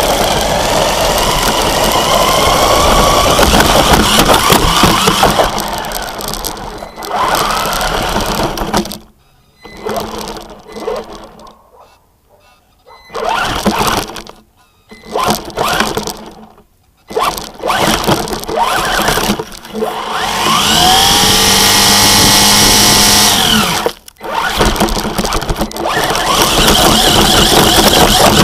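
Electric motor and drivetrain of a 1:16 4WD RC car, heard from on board, whining in bursts with the throttle. The whine rises in pitch as the car accelerates, once about two seconds in and again about twenty seconds in, where it holds high for a few seconds. Several short drops come where the throttle is let off. Rattling and scraping from the rough ground fill the stretches in between.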